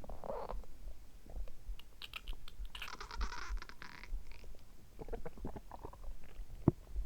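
Human stomach and intestines gurgling and rumbling in irregular bursts, the longest, bubbling gurgle about three seconds in, with soft low heartbeat thuds repeating underneath. A short sharp click comes near the end.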